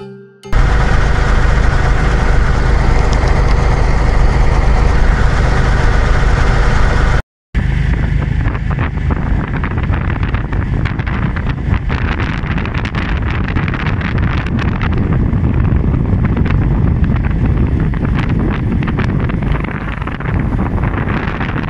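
Vehicle engine running under heavy wind noise on the microphone in a blizzard, cut off briefly about seven seconds in, then continuing with many sharp rattles and knocks over the wind.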